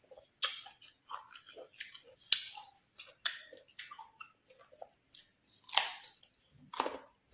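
Close-up chewing of crisp green mango: irregular wet crunches, with louder crunches about two seconds in and just before six seconds.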